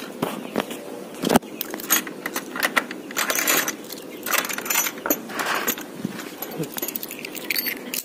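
A key working a steel padlock and a metal chain being pulled loose from a wooden shed door, the links rattling and clinking in irregular clusters, with a sharp click about a second and a half in.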